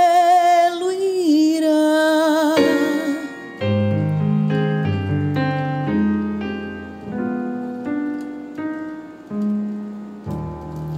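A woman's voice holds the song's final sung note with vibrato, ending about three seconds in. A stage keyboard with a piano sound then plays the closing bars alone: slow chords and low notes, growing softer.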